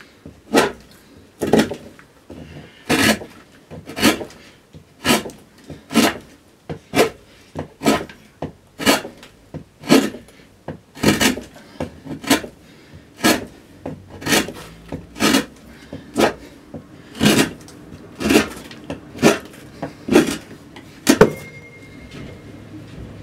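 Hand gouge cutting into a spruce cello top while roughing out the arching: short cutting strokes about once a second, the last one shortly before the end.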